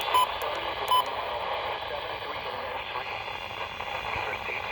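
Radio static from a receiver running steadily. Near the start come two short electronic beeps, about a second apart.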